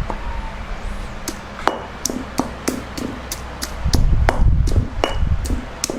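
Pestle pounding garlic with a little water in a mortar. Sharp knocks come about three a second, starting about a second in.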